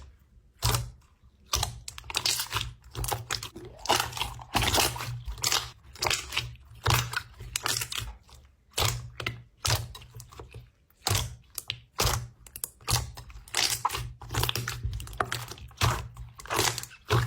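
A slime being squeezed and worked by hand, giving an irregular run of crackling, squishing pops with only brief pauses.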